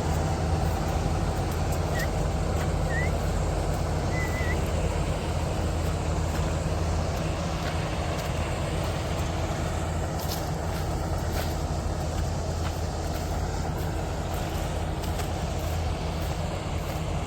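Kartar combine harvester running steadily while cutting wheat: a constant deep engine hum with a noisy machinery wash over it.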